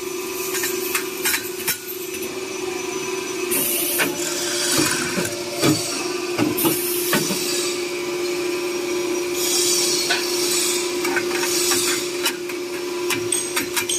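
Ladder expanding and riveting machine at work: a steady motor hum under repeated sharp clicks and knocks of the mechanism, with several short hisses of compressed air.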